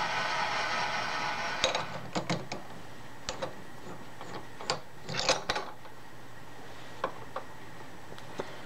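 A steady mechanical whir that cuts off about one and a half seconds in, then a string of sharp metal clicks and knocks as a drill chuck is handled and pushed up into a milling machine spindle.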